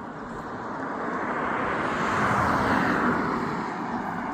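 A vehicle passing by: a rush of motor and tyre noise that builds, peaks about two and a half seconds in with its pitch dropping as it goes past, then fades.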